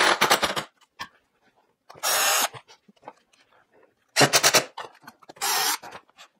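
Cordless drill/driver in four short runs, pre-drilling and driving small screws through metal D-ring picture hangers into the hardboard back of a frame.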